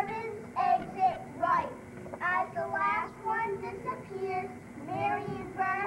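Children's voices singing, high-pitched and uneven, with short phrases coming and going.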